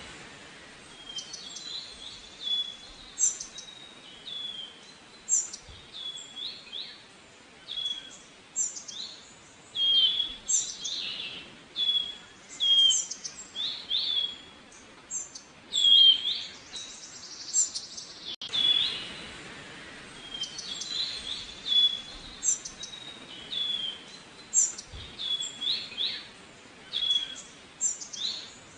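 Several songbirds chirping and singing in short, overlapping phrases of high, quickly falling notes, over a faint steady background hiss.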